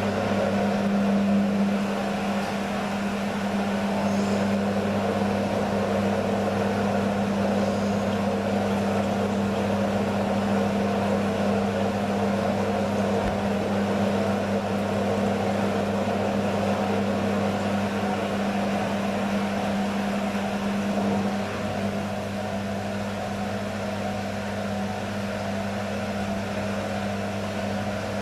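Beko washing machine's drain pump running with a steady hum, pumping out water thick with suds during a suds lock. The hum dips slightly in level about two-thirds of the way through.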